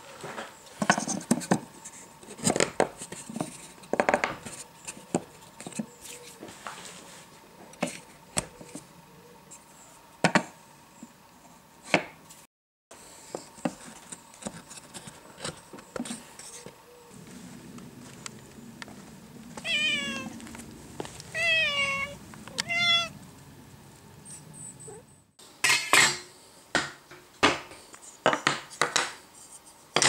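Sharp clicks and knocks of pine boards and wooden dowels being handled and fitted on a workbench. About twenty seconds in, a cat meows three times in quick succession.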